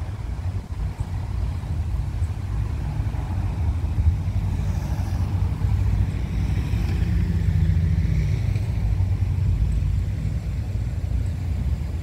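Street traffic: a steady low rumble of cars, swelling in the middle as a vehicle goes by.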